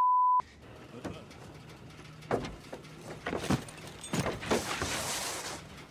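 A short steady high beep, then film sound of a crashed biplane's wreckage: a run of crunching impacts and creaking, bending sounds, with a hissing rush of dust or smoke about four seconds in.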